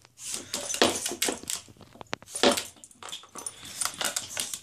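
Pug puppy making short, irregular grunting and huffing noises as she paws at a plastic circle-track cat toy, with a single sharp click about two seconds in.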